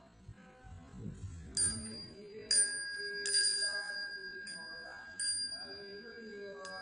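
Copper wind chime with bell-shaped chimes, struck about six times; each strike rings on in a long, clear, high tone that overlaps the next.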